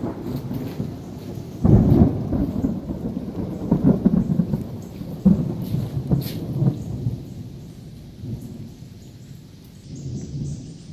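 Thunder rolling: a low rumble already going, then a sudden loud clap about two seconds in that rolls on in several low rumbles and fades away over the next few seconds.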